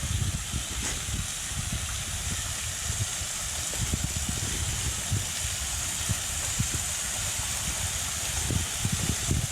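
Small waterfall splashing steadily, a shower-like hiss of falling water, with irregular low rumbles underneath.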